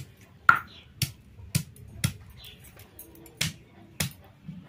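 Sharp clicks as raw chicken is chopped into pieces on a boti, a curved blade fixed to a wooden base, about two cuts a second with a short pause near the middle.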